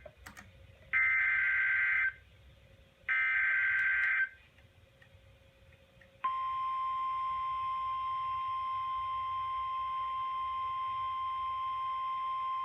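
Two roughly one-second bursts of warbling EAS/SAME digital header data, then a pause. About six seconds in, a steady single-pitch weather radio alert tone starts and holds: the NOAA Weather Radio 1050 Hz warning alarm tone that announces a new warning.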